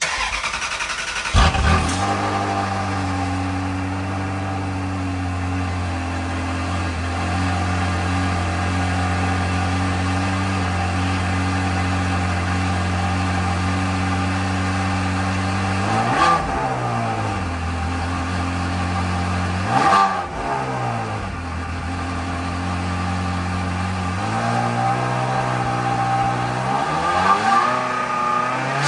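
Ferrari 360's V8 cold-started: the starter cranks briefly, then the engine catches with a flare of revs about a second and a half in and settles into a steady fast cold idle. Two quick throttle blips come in the middle, and the revs climb more slowly near the end before dropping back.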